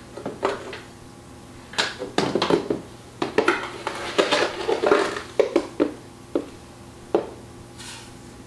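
A metal measuring cup scooping Sucanat out of a plastic canister and emptying it into a stainless steel mixer bowl: a run of clinks, taps and gritty scrapes. It settles after about seven seconds.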